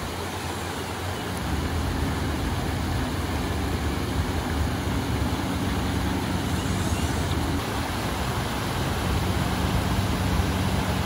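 Off-road SUV engine running steadily, its low hum growing firmer about a second and a half in, over the rush of a shallow creek.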